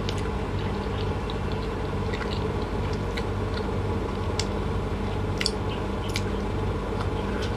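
A person chewing a soft snack, with scattered small wet mouth clicks and smacks over a steady low hum.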